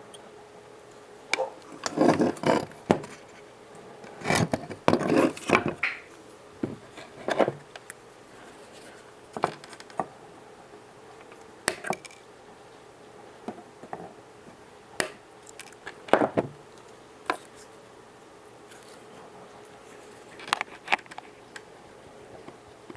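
Irregular clatter of hands and tools working on a flat-screen TV: scattered clicks, knocks and short scrapes on the plastic casing and parts, with the busiest handling in the first few seconds and bursts later on. A faint steady hum sits underneath.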